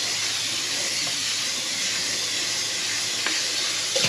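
Kitchen sink tap running steadily while a bowl is rinsed under it.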